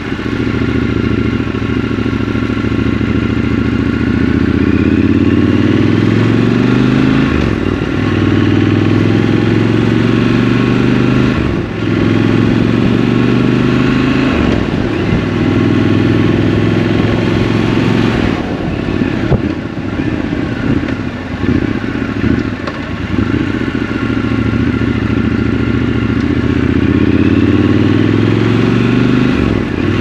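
Triumph Scrambler 1200 XC's 1200 cc parallel-twin engine pulling the bike along, its pitch climbing and then dropping at several upshifts. In the middle it runs rougher and uneven off the throttle, then climbs again near the end.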